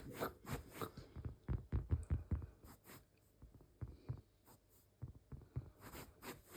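Soft, irregular thumps and rubbing of a cat play-fighting with a person's hand, busiest in the first couple of seconds, then sparser.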